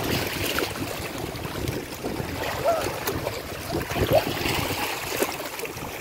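Small waves lapping and trickling over rocks in shallow seawater at the shoreline, a steady wash of water.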